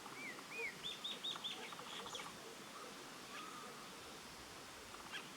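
Wild birds calling: two short rising-falling whistled notes, then a quick run of about five high arched notes a second in, followed by a brief rapid ticking.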